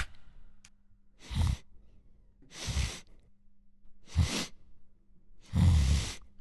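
Heavy breaths: four separate breathy puffs, about every one and a half seconds, each lasting about half a second, over a faint steady hum.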